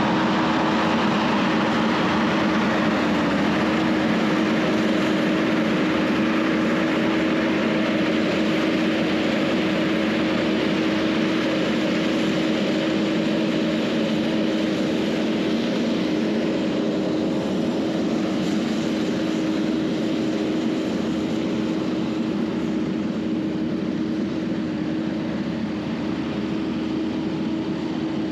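Skid-steer loader running steadily while grading, a constant engine drone with a steady hum that holds its pitch.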